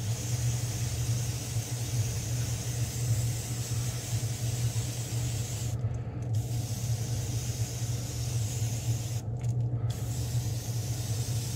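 Airbrush spraying paint in a steady hiss that cuts off briefly twice, about six and nine seconds in, over the steady low hum of a spray booth's filter fan.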